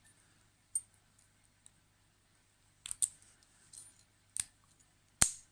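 Yale 713 wafer padlock being worked with its key: a few small metallic clicks, then one sharp, loud snap near the end as the shackle springs open, a really nice snap.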